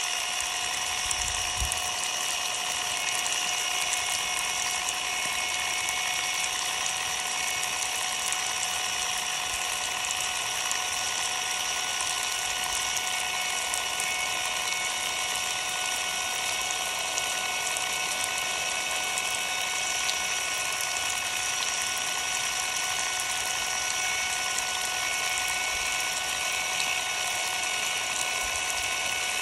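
Ryobi cordless impact driver running steadily with no load, a constant motor whine, under a spray of water hissing down on it; the tool keeps running with its battery's circuit board bare and wet.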